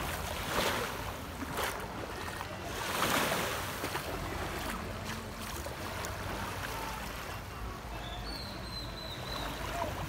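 Small waves washing onto a sandy beach, swelling louder about three seconds in, with wind rumbling on the microphone.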